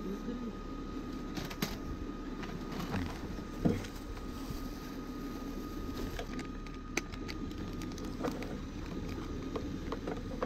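Steady low rush of a portable gas camp stove burning under a kettle near the boil, with a few light clicks and taps as paper cups and instant-coffee sticks are handled.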